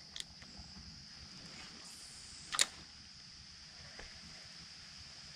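A single sharp click about two and a half seconds in, from handling the spinning rod and reel, with a smaller click near the start, over a faint steady high hiss.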